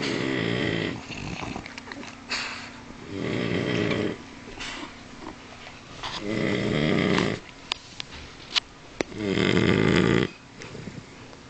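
French bulldog snoring loudly, like a man: four long snores about three seconds apart, each lasting about a second. A couple of short sharp clicks come between the third and fourth snores.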